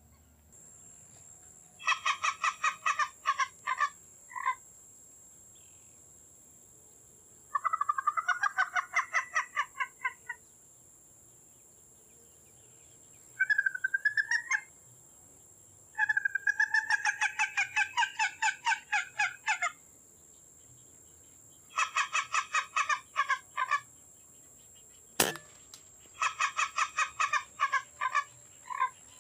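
Gallinule (frango d'água) calling: six bouts of rapid, evenly repeated clucking notes, each lasting one to four seconds, with short pauses between. A single sharp click near the end.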